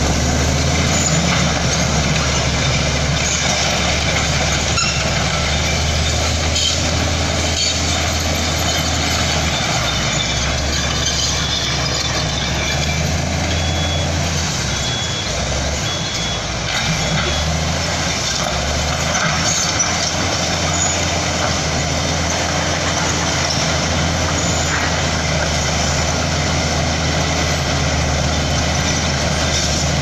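Crawler bulldozer's diesel engine running steadily under load as it pushes broken rock, with a deep, constant drone. A reversing alarm beeps about four times around the middle.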